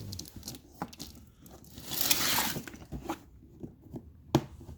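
Trolley jack packaging being torn and handled: a short tearing rustle about two seconds in, with a few light knocks.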